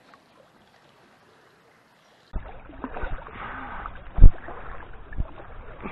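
Almost nothing for about two seconds, then running river water with several dull thumps and knocks, the loudest about four seconds in, as a magnet-fishing rope is hauled on a magnet that is stuck on the bottom.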